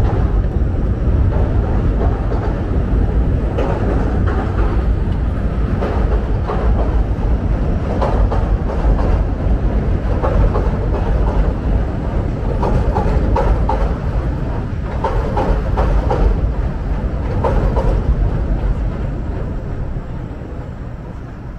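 A Chicago 'L' elevated train crossing a steel truss bridge, its wheels rumbling and clattering on the track, fading near the end.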